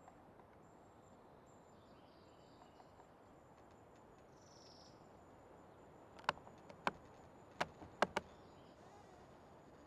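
Faint forest ambience with a few soft bird chirps and a thin, steady high insect-like tone. About six seconds in come five sharp clicks or knocks in quick succession, the last two almost together.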